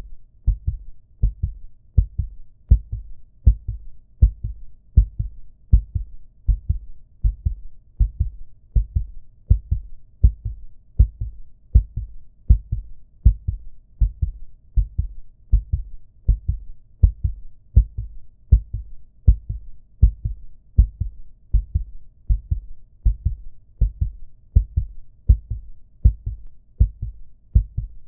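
Heartbeat sound effect: a steady lub-dub of low double thumps, repeating about once a second.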